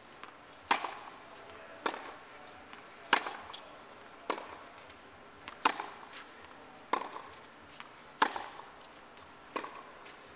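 Tennis racket strings striking the ball in a groundstroke rally: eight crisp hits, one every second or so, alternating louder and fainter, with fainter ticks between.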